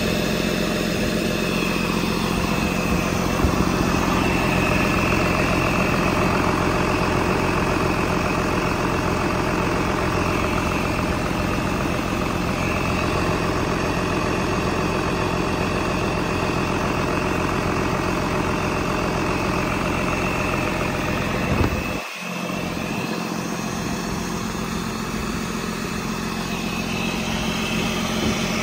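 2017 Hino J08E-WU 7.7-litre turbocharged inline-six diesel engine idling steadily, with a thin high whine over the engine sound.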